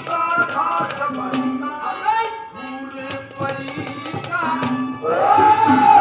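A man singing a Haryanvi ragni through a stage PA, with a hand drum beating along; his voice comes in louder about five seconds in.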